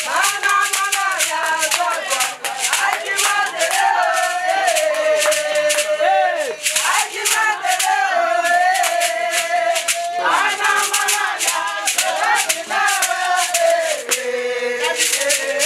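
Singing with long, wavering held notes over a fast, steady shaker rhythm.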